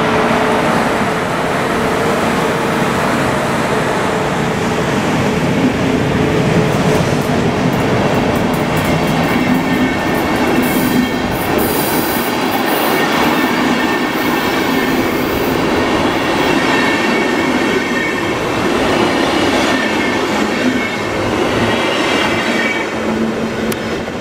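DB Class 110 electric locomotive hauling a train of passenger coaches past at close range, a loud steady rumble of wheels on rail with high-pitched wheel squeal coming in about halfway through. The sound fades out as the last coach goes by near the end.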